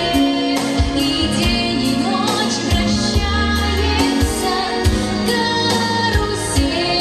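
A female voice singing a song over a backing track with a steady beat.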